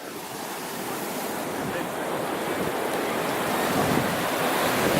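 Ocean surf washing in on the beach, a steady rushing noise that grows steadily louder.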